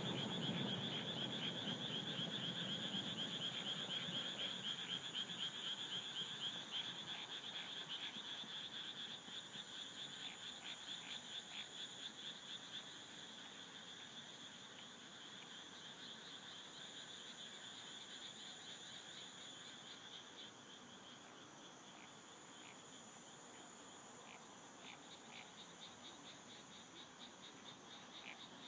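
Frogs and insects calling together in a night chorus: a dense, fast pulsing chorus with a thin steady high trill above it. The low rumble of a fireworks burst dies away over the first few seconds.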